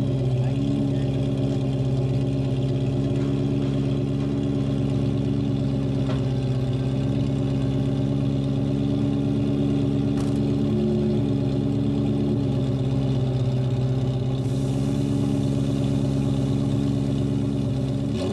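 Ferrari 348's mid-mounted 3.4-litre V8 idling steadily with the car parked, its pitch shifting slightly a couple of times.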